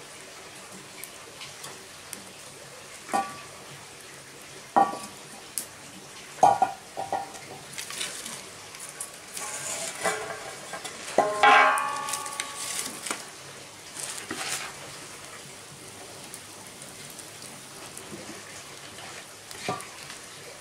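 A cast-iron frying pan and other metal cookware clanking several times on an iron trivet over a wood fire, the loudest cluster near the middle ringing briefly. Under the clanks runs a faint steady sizzle from the hot, smoking pan and fire.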